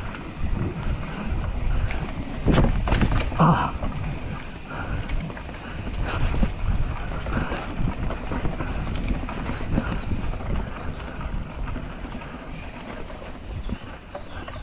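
Mountain bike being ridden on a dirt trail: wind buffets the action-camera microphone over the rumble and rattle of the tyres and bike.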